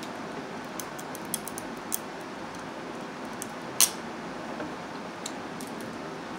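Steamed blue crab shells being cracked and picked apart by hand: a scatter of sharp snaps and clicks, the loudest about four seconds in, over a steady background hum.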